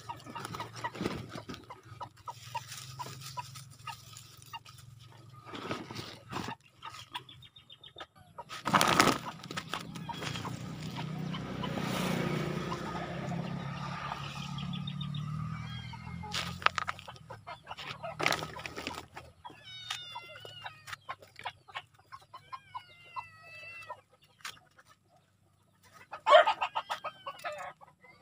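Backyard chickens clucking in short calls, with one louder call near the end. A few knocks, one of them loud about nine seconds in, from stone blocks being set down in the soil.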